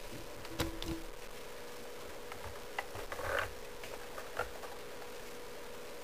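Hands handling a plastic Lego model up close: a few light clicks and knocks, with a brief rustle about three seconds in, over a steady low hum.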